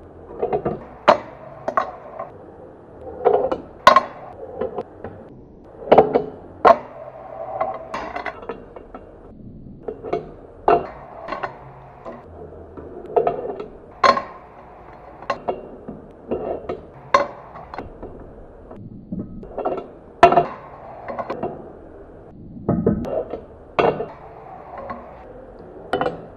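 A fingerboard ridden over a wooden tabletop: wheels rolling on the wood, with sharp, uneven clacks as the deck and wheels strike the wood on pops and landings.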